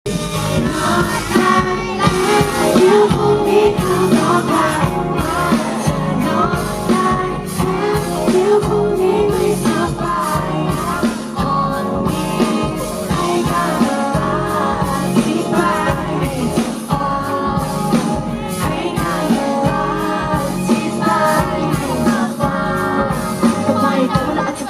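Live pop band playing a song, with singing over it.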